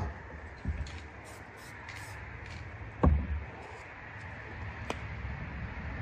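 Spray paint can set down on the wooden painting board with a sharp knock, then a duller thump about three seconds in, over a steady faint hiss.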